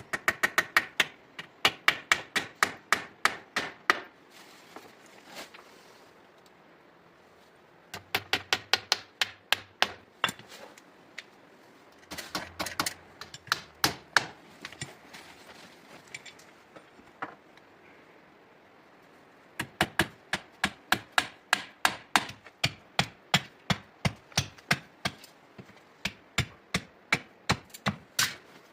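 Rapid hammer blows on wood, about four or five strokes a second, in four runs with short pauses between them.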